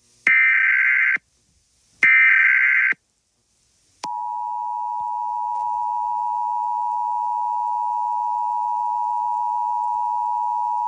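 Emergency Alert System header tones: the last two of three SAME data bursts, each just under a second long with short gaps between, then, about 4 s in, the steady two-tone EAS attention signal (853 and 960 Hz). The attention signal announces that an emergency warning message follows.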